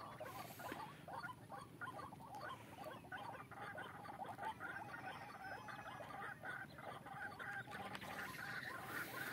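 Bird calls played from a hunting lure speaker: a steady stream of rapid, short chattering notes.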